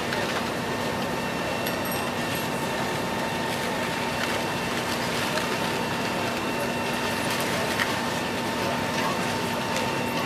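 Steady drone of heavy diesel machinery, from the Liebherr R944C excavator working the debris pile and the fire apparatus running alongside, over a constant hiss, with a few faint knocks.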